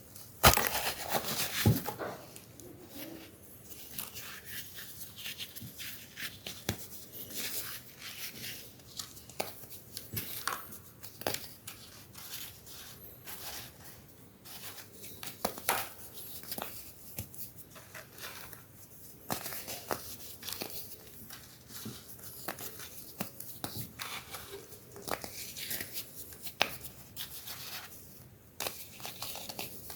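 Pressed baking soda shapes being crushed and crumbled, with a loud crunch about half a second in, then a long run of irregular small crackles and crumbling crunches.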